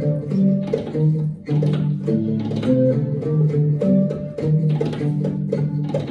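Live trio music: Hindustani slide guitar playing held and sliding notes, over a shakuhachi flute and tabla strokes. The trio is improvising on the Japanese Akebono scale in a six-beat rhythm.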